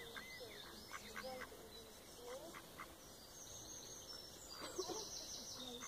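Mallard ducks quacking faintly, a few short scattered calls.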